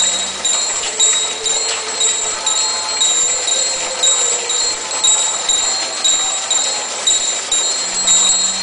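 Church bells ringing in a steady repeating peal, with the hum of the crèche's animation motors underneath.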